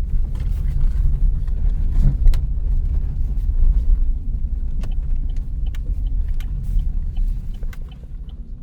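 A car driving, its engine and road noise making a steady low rumble with scattered light clicks and knocks, easing off a little near the end.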